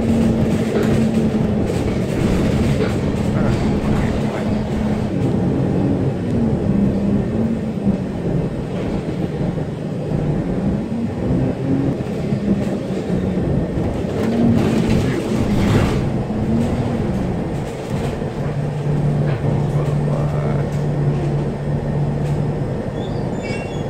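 Motor vehicle engine running over steady road noise, its pitch rising and falling several times as it speeds up and slows down, then holding steady for a few seconds before rising again near the end.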